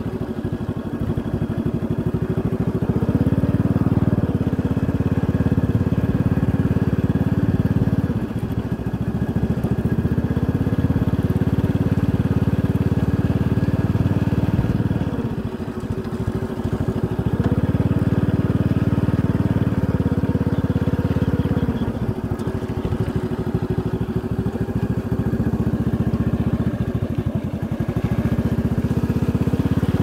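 Small motorcycle engine running as the bike rides along a dirt track, its note dipping briefly several times and picking up again.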